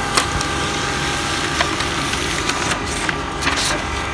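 HP LaserJet M14–M17 series laser printer running as it prints and feeds out a page: a steady mechanical whir with several sharp clicks of the paper feed.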